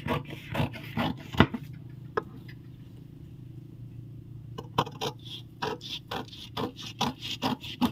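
Scissors snipping through brown kraft-paper pattern paper: a few snips in the first second and a half, a short pause, then a run of quick snips, about three or four a second.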